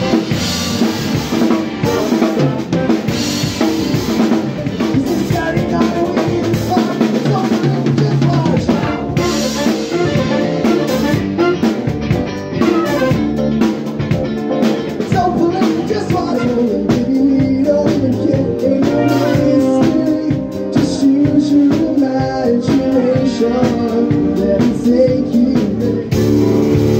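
Live band playing pop music, with the drum kit loud and close (kick, snare and cymbals) and electric guitar and a horn section of saxophones and trumpet behind. Near the end the music jumps to a different passage.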